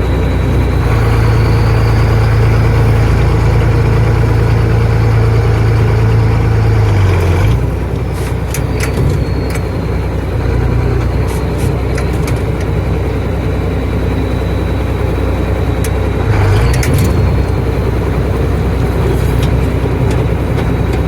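Tractor engine running steadily. About seven and a half seconds in its note drops, with a few clicks, and it rises briefly again around sixteen seconds.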